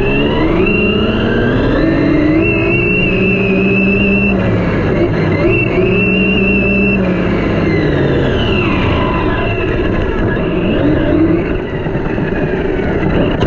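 Onboard sound of a 1/8-scale 6S brushless RC monster truck on a full-throttle speed run: the motor and drivetrain whine climbs in pitch over the first couple of seconds and holds high, dips and climbs again, then falls away about seven seconds in as the truck slows, with a few shorter rises and falls after. A steady low rush runs underneath.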